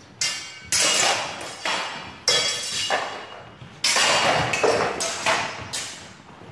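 Swords and bucklers clashing in a sword-and-buckler sparring exchange: about nine sharp, ringing clangs in quick groups, echoing in a large hall.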